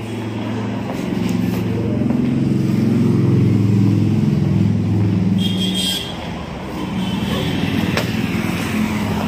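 A motor vehicle's engine passing close by on the road, growing louder to a peak three to four seconds in and then fading. A short high-pitched tone sounds about five and a half seconds in.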